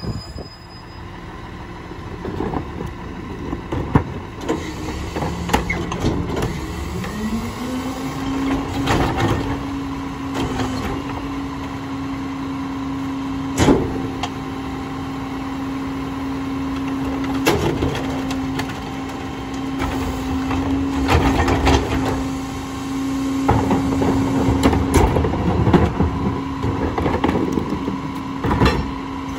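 Rear-loader garbage truck's engine running at idle, then speeding up about seven seconds in and holding a higher steady pitch, as the throttle advances for the hydraulics. Scattered knocks and bangs come from plastic carts being handled and tipped at the rear hopper.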